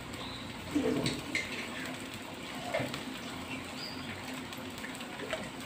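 Bird calls in the background: a few short, high chirps and a lower call about a second in, with a falling call near the middle, over steady room noise.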